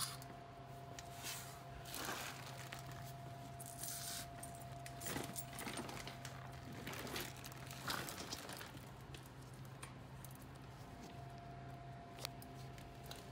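Tools and a plastic bag of bolts being handled while someone gets down on a concrete garage floor: irregular rustling and crinkling with a few light metal clinks, over a steady faint hum.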